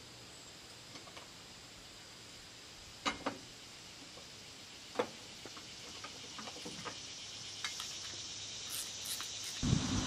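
Scattered light clicks and clinks of metal roof-rack brackets being handled and clamped onto a van's roof rail, a few single knocks spaced a second or two apart, busier toward the end.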